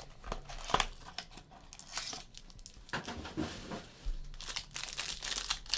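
Trading-card pack wrapper being torn open and crinkled by hand: a run of short crackles and rustles.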